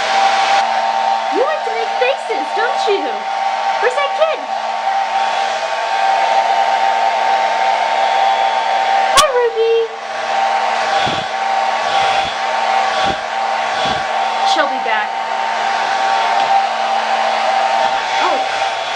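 Handheld blow dryer running steadily with an even whirring hum, with a few short squeaky rising-and-falling sounds over it, the sharpest about nine seconds in.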